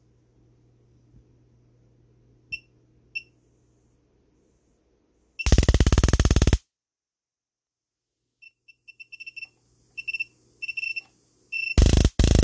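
Bench power supply beeping in short blips as its settings are changed, several times in quick succession. A high-voltage arc fed from it buzzes loudly for about a second halfway through, and starts buzzing again near the end.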